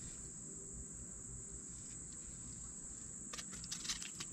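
Faint, steady high-pitched chorus of insects. A scatter of sharp clicks and taps starts near the end.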